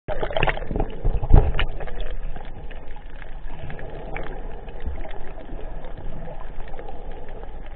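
Muffled water noise around a submerged camera, with scattered clicks and a few heavy thumps in the first second and a half, then a steadier wash of noise.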